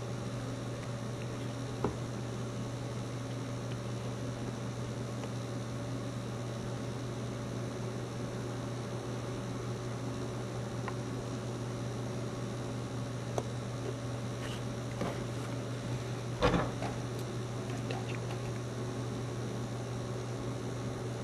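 Steady low hum with a light hiss. A few small clicks come from a plastic miniature being handled and pressed onto its base, the loudest a short knock about sixteen seconds in.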